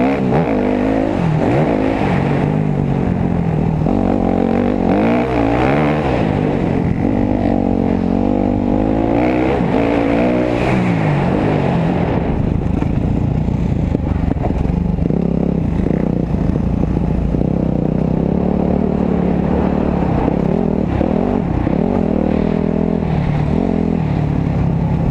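Dirt bike engine heard from on board, its revs rising and falling again and again as the throttle is worked along the trail.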